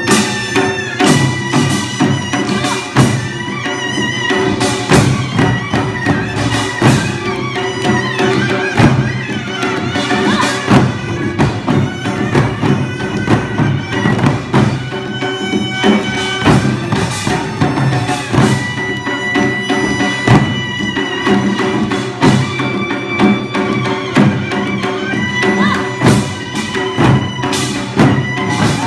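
Korean traditional music: a loud, reedy wind instrument plays a melody over steady drum and percussion strokes.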